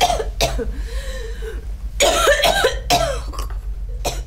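A woman coughing and choking, in two fits of strained, gasping coughs, the second starting about two seconds in: food gone down the wrong pipe.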